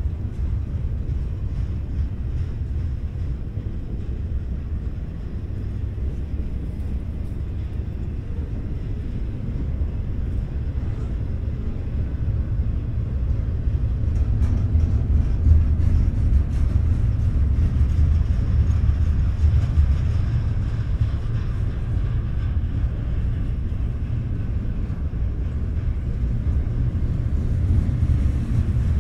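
Steady low rumble of a BNSF double-stack intermodal freight train's well cars rolling past on the rails, growing a little louder about halfway through.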